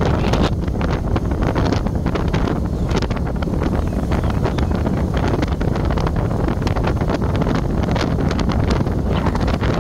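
Wind buffeting a microphone carried in a moving vehicle, over a steady low rumble of road and engine noise, with constant rough crackles from the gusts.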